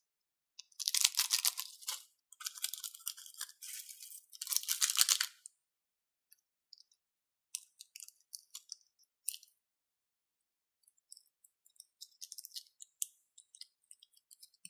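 Thin plastic bag crinkling in three loud bursts of handling, then a few sharp snips of small scissors cutting a plastic bag open. Near the end comes softer crinkling and clicking as a bag is squeezed.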